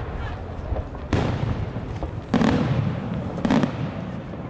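Aerial firework shells bursting overhead: two sharp bangs a little over a second apart, each trailed by rolling echo, over a continuous low rumble of the display.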